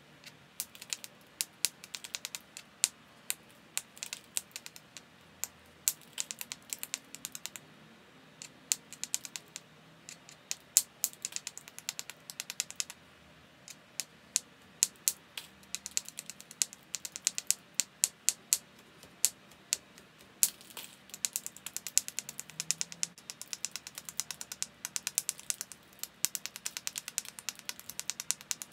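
Small hammerstone striking the edge of a chert biface in quick runs of light, sharp stone-on-stone clicks, with a couple of short pauses. This is percussion flaking to shape and thin the biface.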